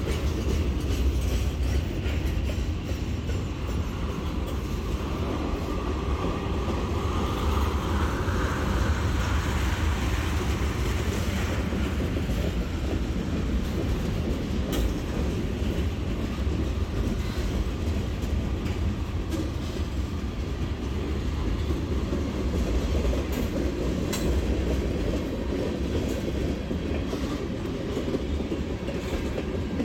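CSX freight train cars rolling past close by: a steady rumble and clatter of steel wheels on the rails. A faint whine rises and fades between about five and eleven seconds in.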